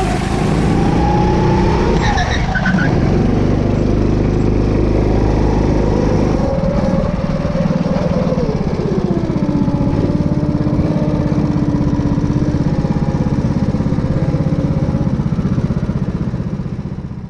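Go-kart engine running under throttle, its pitch rising and falling as the kart speeds up and lifts off. About nine seconds in the pitch drops to a lower, steady note as the kart slows down, and the sound fades away at the very end.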